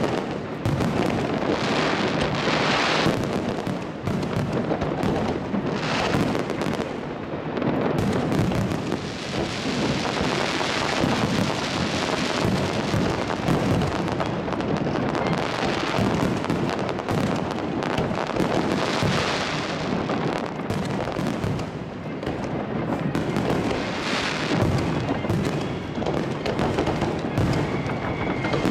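Fireworks show at close range: a dense barrage of shells launching and bursting, with bangs and crackling that run on without a pause.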